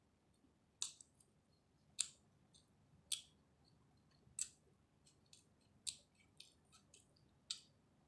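Close-up eating sounds of a person chewing chicken biryani: short, sharp, wet smacks and clicks of the mouth, the strongest about every second or so with fainter ones between.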